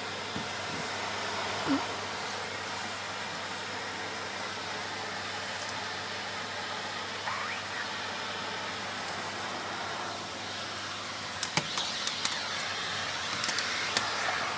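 Small Hoover vacuum cleaner running steadily. Near the end come a run of sharp clicks and rattles as bits of debris are sucked up the nozzle.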